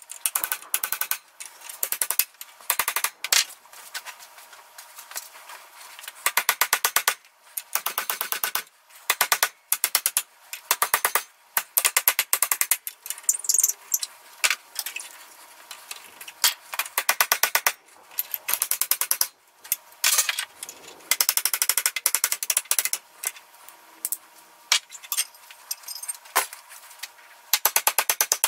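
Hammer striking steel mower-spindle and blade fittings in quick bursts of rapid, sharp metallic blows, with short pauses between bursts, as the blades are knocked loose.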